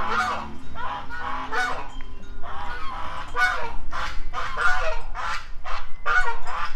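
Two white domestic geese honking repeatedly, about a dozen short calls in quick succession, some coming in close pairs.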